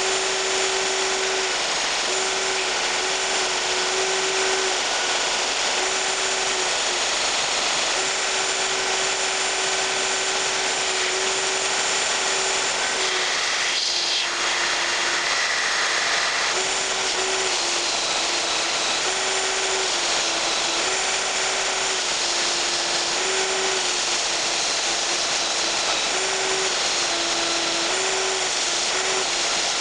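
Belt sander grinding a steel knife blank, taking metal off to taper the blade toward the point. A loud, steady grinding hiss over a motor hum that keeps dipping slightly in pitch and recovering as the blade is pressed against the belt.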